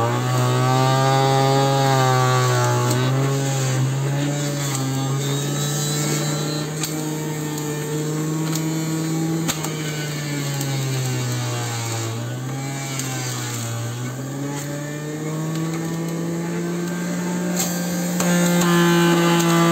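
Electric centrifugal juicer's motor running with a high whine. Its pitch sags a few times as produce pushed down the feed chute loads it, then climbs back as the load eases, highest near the end.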